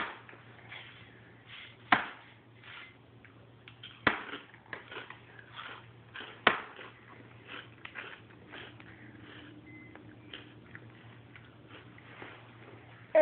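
Scattered sharp clicks and taps, four of them louder and roughly two seconds apart, with many softer ticks between, over a faint steady low hum.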